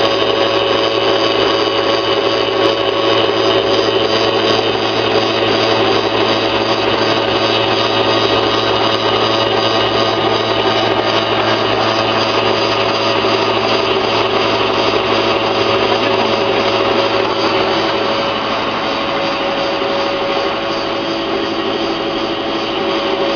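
Electric-motor-driven flat-die pellet mill running steadily under load while it extrudes pellets: a loud, even drone with several held tones over a low hum, easing slightly in level near the end.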